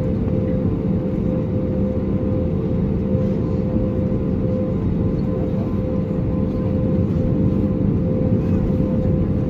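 Steady cabin noise inside an Airbus A320neo as heard from a window seat: an even rumble and hum from the engines and air conditioning, with a few steady humming tones and no change in level.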